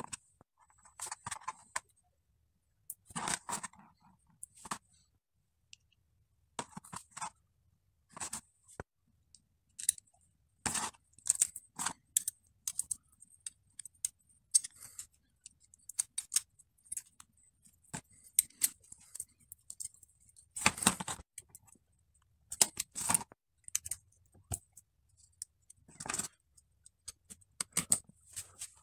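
Bicycle rear derailleur parts being handled and fitted together: small metal and plastic pieces, jockey wheels, bolts and washers, clicking, tapping and rattling against each other and the plastic parts tray in short, irregular bursts.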